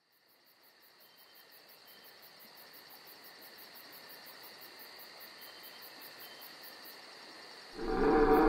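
Insects calling in a fast, even pulse, fading in slowly over a steady high whine. Near the end a much louder, deeper sound cuts in suddenly.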